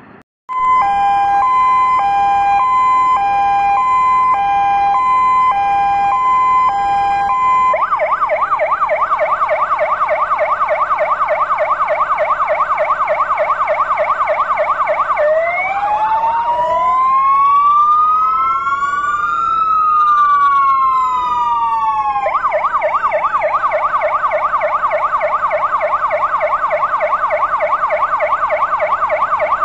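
Fire engine sirens sounded in tribute. After a brief dropout at the start, a two-tone high-low alternation runs for about seven seconds, then switches to a fast warble. Around the middle two slow wails rise and fall together before the fast warble returns.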